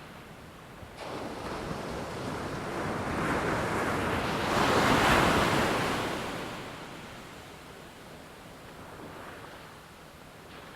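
An ocean wave breaking and washing in: a rush of noise that starts abruptly about a second in, swells to its loudest around five seconds and dies away.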